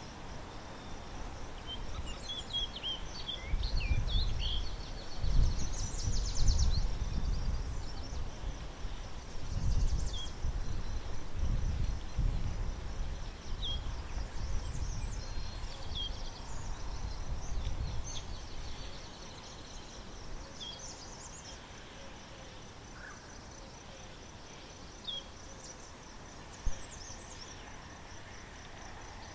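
Outdoor ambience: an insect trilling steadily in a high, finely pulsing band, with short high chirps from small birds dotted through it every second or two. A fluctuating low rumble, loudest in the first half, drops away after about two-thirds, and a single sharp click comes near the end.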